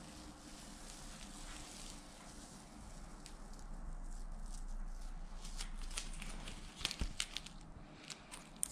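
Painter's tape being peeled off the edge of a table top, a faint rasping rip that swells in the middle, with crinkling of the gathered tape and a few light clicks near the end.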